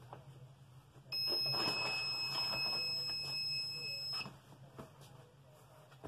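Heat press timer buzzer giving one steady high-pitched beep of about three seconds, starting about a second in, signalling that the press time is up. The placemat and Teflon sheet rustle as they are handled.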